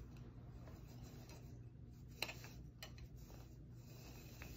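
Faint, scattered light clicks and taps of plastic cups being shuffled on carpet, the sharpest about halfway through, over a low steady room hum.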